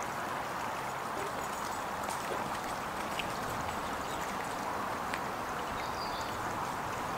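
Steady rushing of a woodland stream flowing, with a couple of faint ticks.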